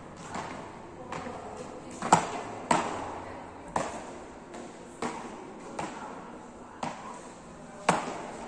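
Beach tennis paddles striking the ball in a rally: a string of sharp, hollow hits roughly once a second. The loudest comes about two seconds in and another near the end, on an overhead smash.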